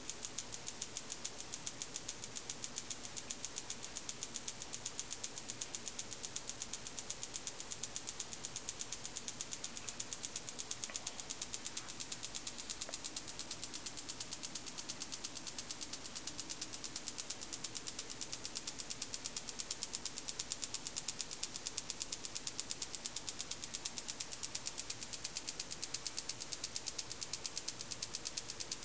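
Homemade Franklin electrostatic motor, its ping-pong-ball rotor on drinking-straw spokes spinning under 25 kilovolts from a voltage multiplier, making a rapid, even ticking.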